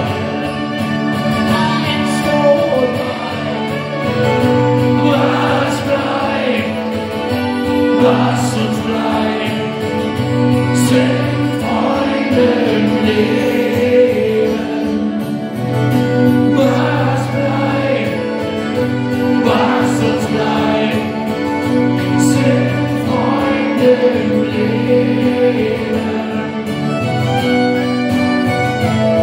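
Live acoustic band playing an instrumental passage of a ballad: strummed acoustic guitar with bowed violin over sustained low notes.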